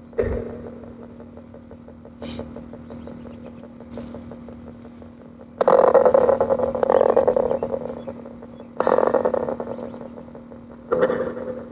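Spirit box sweeping through radio stations: a steady hum with a short pop just after the start, then loud bursts of scanning static that cut in suddenly about halfway through and twice more near the end.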